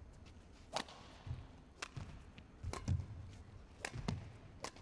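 Badminton rally: sharp racket strikes on the shuttlecock about once a second, with dull thuds of the players' footwork on the court in between.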